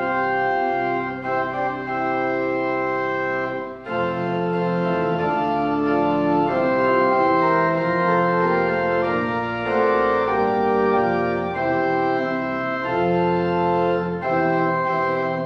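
Organ playing a slow postlude of sustained chords that change every second or so, with a brief dip about four seconds in.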